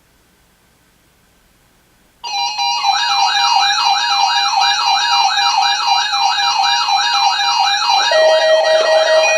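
Electronic siren-like alert tone that starts suddenly about two seconds in. Its pitch sweeps up and down about three and a half times a second over steady high tones, and a steady lower tone joins near the end.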